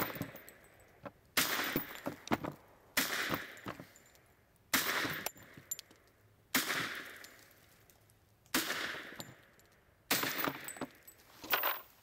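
A series of about eight sharp bangs, one every one and a half to two seconds, each trailing off briefly.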